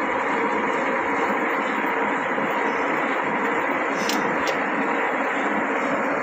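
C6240 engine lathe running steadily, its headstock gearing and spindle giving a constant whir with a few held tones. Two short light clicks about four seconds in.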